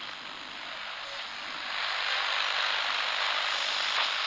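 Shallow water lapping over sand at the shoreline: a steady, splashy hiss that grows louder about two seconds in.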